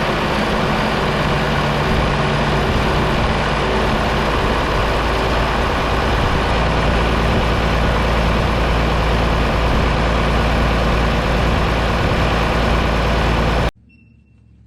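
John Deere 4840 tractor's six-cylinder diesel engine running steadily, freshly overhauled. The sound cuts off suddenly near the end.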